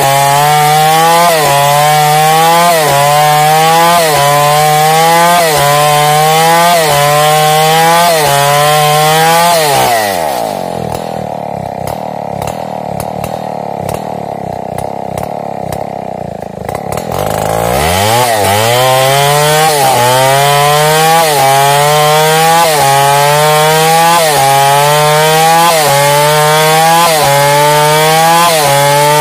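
New West 707 chainsaw with a 36-inch Oregon bar ripping lengthwise through a timber, its engine pitch sagging and recovering about once a second under the load of the cut. About ten seconds in the throttle is let off and the engine drops to idle for some seven seconds, then revs back up and cutting resumes.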